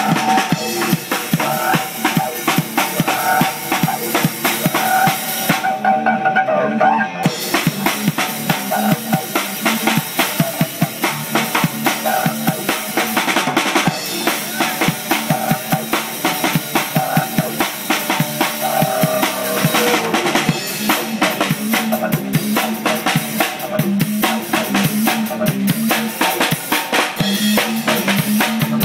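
Didgeridoo drone pulsing in rhythm, played together with a drum kit: bass drum, snare and cymbals keeping a steady beat. The drums drop out briefly about six seconds in.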